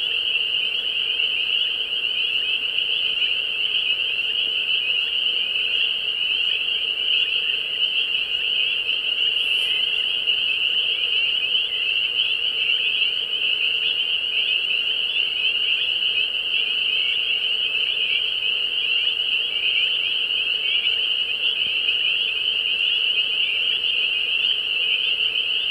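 A loud chorus of spring peepers: many high-pitched peeps overlapping into one steady, unbroken wall of sound.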